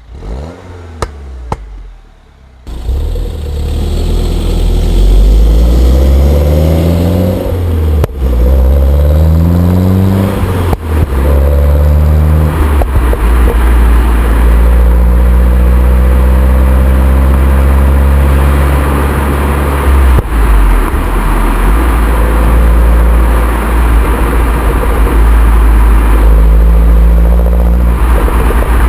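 Mini Cooper S's 1.6-litre turbocharged four-cylinder on its stock exhaust. A few sharp pops come from the exhaust in the first seconds. Then the engine revs up under acceleration, its pitch rising through the gears with short breaks at the shifts about 8 and 11 seconds in, and settles into steady running for the rest.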